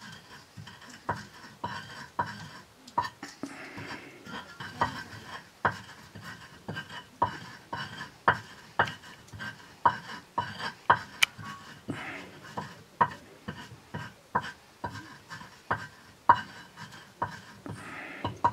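A round hand stone pounding grains on a flat grinding stone (Nepali silauto and lohoro), stone knocking on stone about twice a second, each knock with a short ring.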